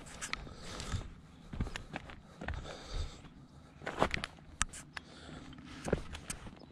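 Footsteps crunching irregularly on loose gravel and dirt while walking down a rocky slope, with the sharpest crunches about four seconds in and again near six seconds.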